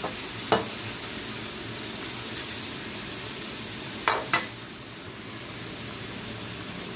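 Beef sizzling in a frying pan as it is stirred. A utensil knocks sharply against the pan once about half a second in and twice in quick succession about four seconds in.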